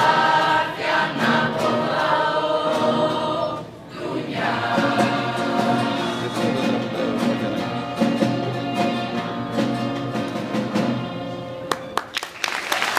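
Mixed choir of teenage voices singing in unison with strummed acoustic guitars, with a brief breath pause about four seconds in. The song ends near the end and the first claps of applause begin.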